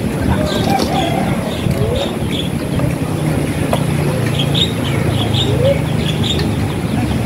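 A steady low motor hum, with small birds chirping again and again over it.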